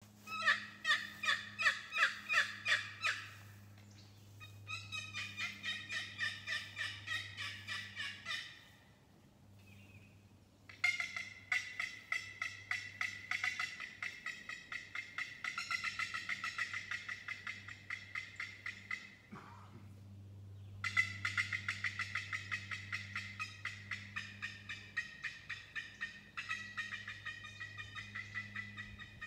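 4-Play turkey box call played in runs of rapid, evenly spaced turkey calls, four runs with short pauses between them; the notes come faster in the third run, and the first run is the loudest.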